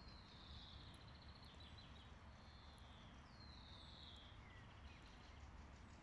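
Faint songbird song: several high phrases, each a falling note running into a quick trill, in the first five seconds, over a steady low rumble.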